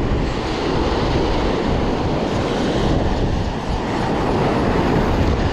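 Dense, steady rushing of surf and wind on the microphone, mixed with the rapid clicking of a fly reel held close by while a hooked fish is fought.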